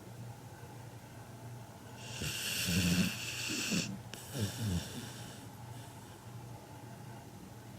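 Labrador Retriever puppy snoring in its sleep, loud like a grown man's snore: one big snore about two seconds in, lasting under two seconds, then a shorter, lower breath, then quieter breathing.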